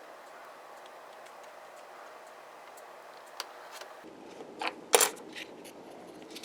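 Faint steady room noise with light ticks, then a few sharp handling clicks and taps on the workbench from about three and a half seconds in, the loudest around five seconds.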